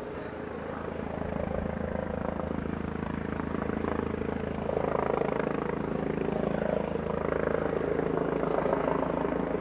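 Eurocopter EC135 police helicopter flying overhead: a steady rotor and engine drone that grows louder about halfway through.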